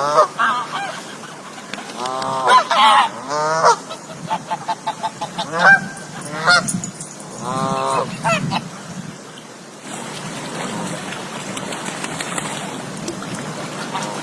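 A group of geese honking in bouts, with a quick run of short honks in the middle. The honking stops about ten seconds in, leaving a steady rushing noise.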